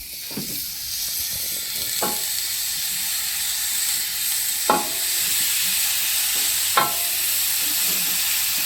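Vegan burger patties frying in a hot pan: a steady sizzle that builds over the first second and then holds, with three short knocks about two, four and a half and seven seconds in.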